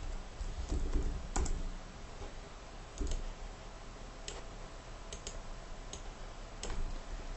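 Computer mouse clicks and keyboard keystrokes: a handful of separate sharp clicks at uneven intervals, some in quick pairs, over a steady low hum.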